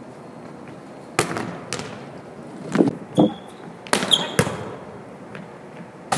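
A volleyball being struck and bouncing on a hardwood gym floor: about half a dozen sharp hits with echo, between about one and four and a half seconds in. A brief high squeak comes near the middle.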